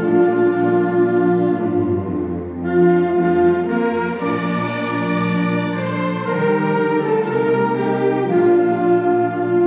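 Junior wind band with flutes and clarinets playing a slow piece in sustained chords that change every second or two.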